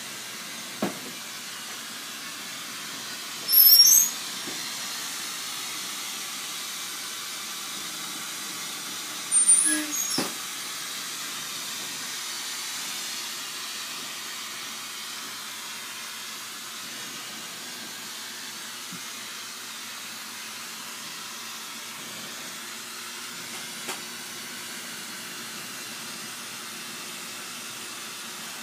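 Lampworking torch flame hissing steadily, with two brief, loud high-pitched squeaks about four and ten seconds in.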